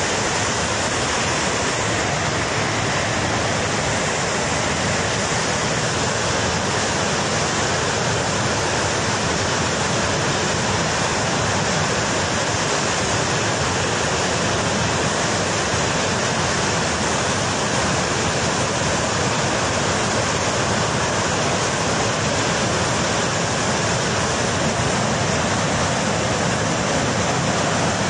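Flash-flood torrent from a glacier burst, a surge of muddy water and debris rushing down a mountain river: a steady, unbroken rush of water.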